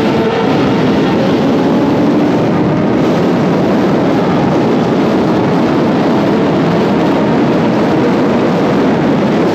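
BMW S1000RR's inline-four engine running steadily at cruising speed in a road tunnel, mixed with heavy wind rush on the microphone.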